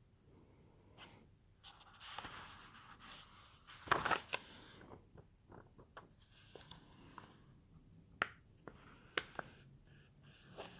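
Faint rustling and scratching on paper in a small room, with a few sharp clicks: paper being handled or written on.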